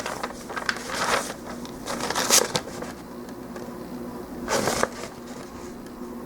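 Plastic model kit parts being handled: short rustling clicks and scrapes of plastic, in a few separate bursts about a second, two seconds and four and a half seconds in, over a faint steady hum.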